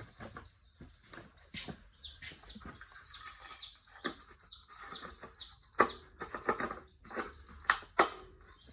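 Small birds chirping over and over in short falling notes, with scattered clicks and a few sharp knocks, the loudest in the second half.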